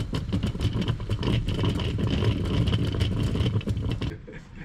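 Backpacking gas canister stove (PRIMUS P-153) burning at full flame: a steady roaring hiss with a low rumble, which drops away sharply near the end.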